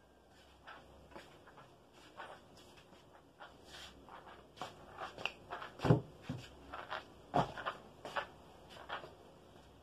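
Scattered clicks, knocks and rustles of a person moving about a small room and handling things, busier in the second half, with two louder thumps about six and seven and a half seconds in.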